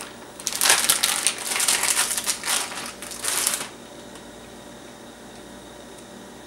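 Crinkling plastic packaging, likely a pepperoni bag being handled, for about three seconds. Then it stops and only quiet room tone remains.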